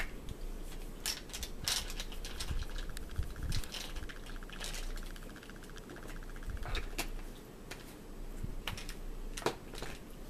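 Light clicks and clatter of handling at a table: a small plastic bottle and its cap being worked and a fork in a plastic bowl, with a fast fine rattle for a few seconds starting about two and a half seconds in.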